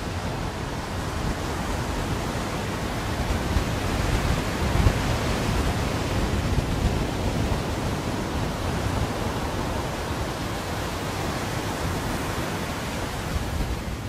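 Sea waves breaking and washing up a sandy beach: a steady rush that swells about four to seven seconds in, with gusty wind rumbling on the microphone.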